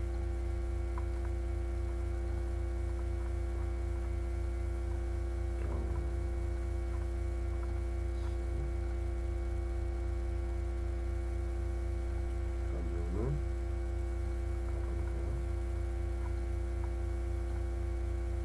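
Steady electrical mains hum and buzz on the recording, a sign of the poor microphone condition, with a couple of faint, short voice sounds.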